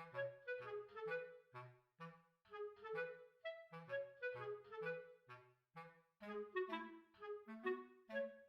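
Background music: a light tune of short, detached woodwind-like notes over lower bass notes, a few notes each second.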